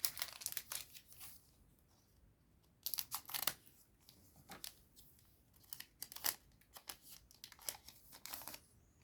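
A Digimon Card Game booster pack's foil wrapper being torn open and crinkled, in several short bursts of tearing and crackling with brief pauses between.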